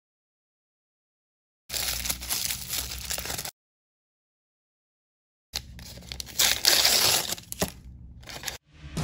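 Plastic and foil blind-bag wrappers crinkling and tearing in short bursts, split by two stretches of dead silence. The longest and loudest burst comes in the second half, as a foil bag is torn open.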